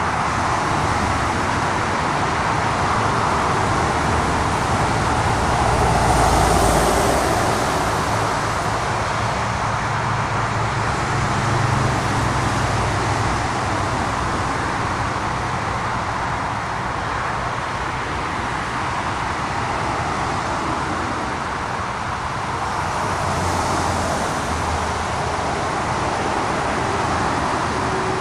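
Road traffic running steadily, with a few vehicles swelling louder as they pass, the loudest about six seconds in.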